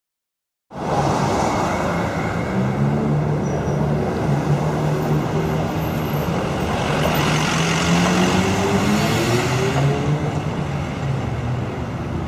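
Street traffic noise with a motor vehicle engine running close by, cutting in abruptly just under a second in; the engine note climbs gently in pitch in the middle as the vehicle speeds up.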